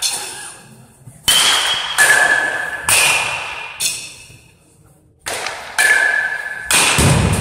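Baseball bats hitting balls in quick succession, about eight sharp cracks, several followed by a brief ringing ping, with echo from a large indoor hall.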